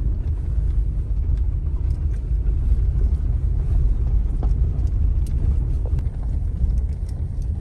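A car driving up a steep road, heard from inside the cabin: a steady low rumble of engine and tyres, with a few faint ticks.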